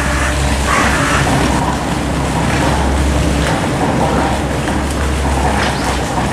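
Construction machinery running nearby: a steady low engine drone that dips briefly about halfway through.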